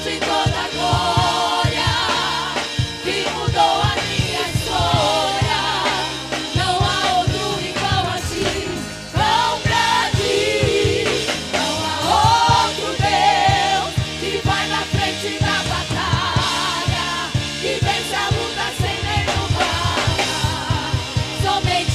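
Gospel worship song played live by a church vocal group with a band: several voices sing with vibrato over a steady drum beat.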